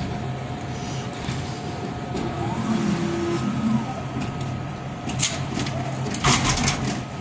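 Glass-front drink vending machine vending a bottle: the delivery mechanism's motor hums steadily, then several sharp knocks and a clatter about five and six seconds in as the bottle is released toward the delivery bin.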